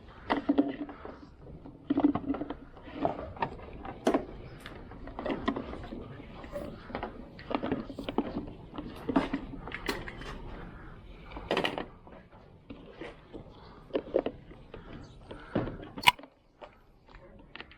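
Irregular clanks, clicks and knocks of hand tools and metal parts being handled during work on a car, with one sharp click near the end.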